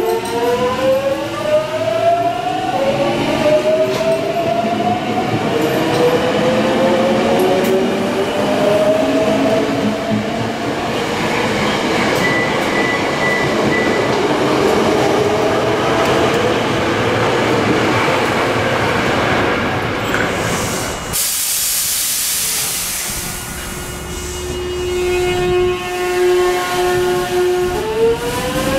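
Hankyu 8300 series (early batch) Toyo Denki GTO-VVVF inverter sounding as the train pulls away. A steady low hum gives way to a stack of whining tones that climb in pitch in stages as the train accelerates, under rail running noise. About two-thirds of the way through there is a short burst of hiss. The steady hum then returns and begins to climb again near the end, as another acceleration starts.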